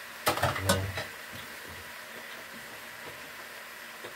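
A quick run of sharp metallic clinks and knocks, a metal ladle against a stainless steel pot, about a second long, then only a steady faint hiss.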